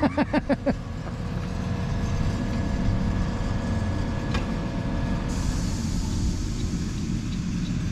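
A motor or engine running steadily nearby, a low rumble with a steady hum on top. A high hiss joins it about five seconds in.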